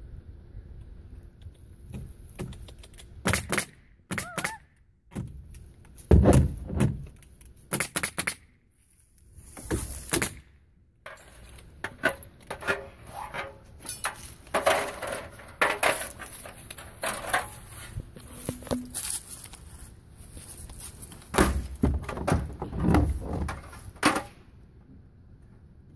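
Irregular knocks and thuds from wooden shed trim boards being handled and fastened, with a cluster of heavier thumps near the end.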